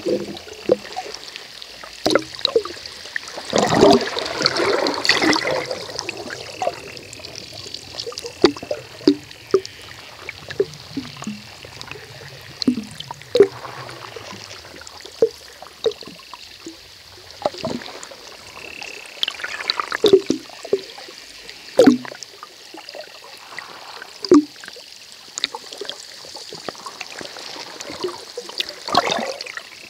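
Underwater hydrophone recording of a dense, irregular run of clicks and pops with a faint buzzing of several pitches at once, like drowning crickets, which the recordists believe is dolphins communicating. A louder rushing stretch comes about four seconds in.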